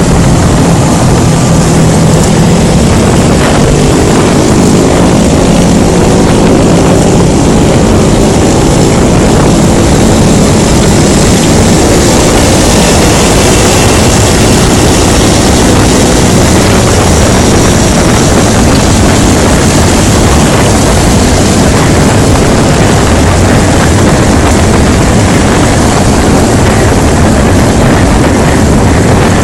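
Loud, steady wind and road rush on a helmet-mounted phone microphone while riding a motor scooter through traffic. An engine's drone comes through the rush, its pitch shifting, for about ten seconds in the first half.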